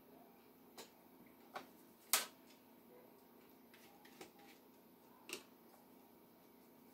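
Quiet room tone with five small, sharp clicks and taps spread over several seconds, the loudest about two seconds in, from a paintbrush and painting gear being handled while painting.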